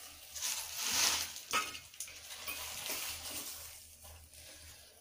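Washed spinach leaves being dropped and pushed into a steel pot of boiling water: wet leaves rustling with a hiss, loudest about a second in, and one sharp tap shortly after.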